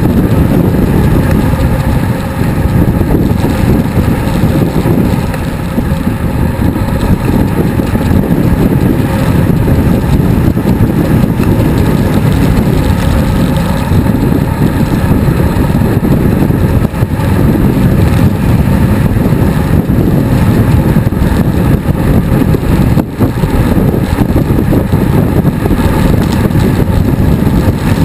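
Loud, steady wind buffeting on a GoPro action camera's microphone while riding a road bicycle at speed: a continuous low rumble that flutters in strength.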